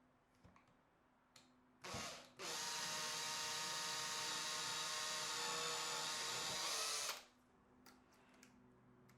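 A power tool's electric motor gives a short blip about two seconds in, then runs at a steady speed for about five seconds and cuts off sharply.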